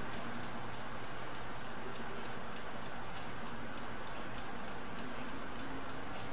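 Mechanical laboratory stopclock ticking steadily and quickly, about five ticks a second, over a faint steady hum.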